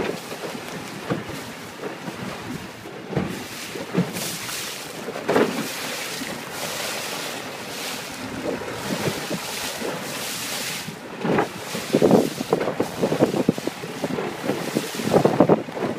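Wind buffeting the microphone and water rushing past a longtail boat under way on choppy river water, with irregular louder splashes and slaps from the hull on the waves.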